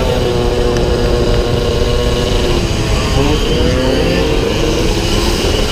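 Small 48cc racing scooter engines running at high revs, a steady buzz whose pitch wavers up and down.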